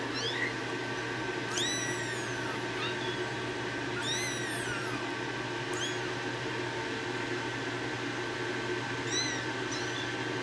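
Kittens mewing: about half a dozen short, high-pitched meows that rise and fall, the clearest about two, four and nine seconds in, over a steady low hum.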